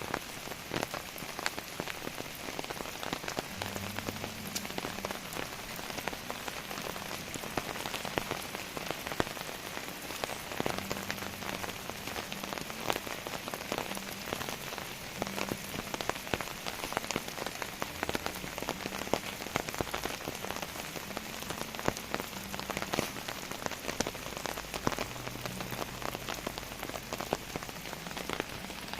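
Heavy rain falling steadily, with a dense hiss and many sharp individual drop hits.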